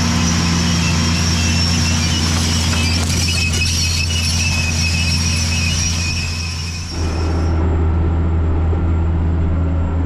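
Tractor engine running steadily as it pulls a planter close by, with a high squealing whine from the machinery over the engine note. About seven seconds in it switches abruptly to the steadier engine drone inside a tractor cab, and the squeal fades out.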